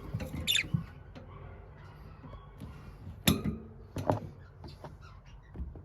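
Budgerigars making a few short, high chirps, with scattered small clicks and clinks in between.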